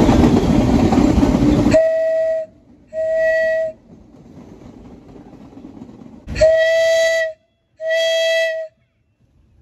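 Subway train running noise that cuts off abruptly about two seconds in. Then a subway train horn sounds four blasts of one steady pitch, each under a second: two close together, a pause, then two more.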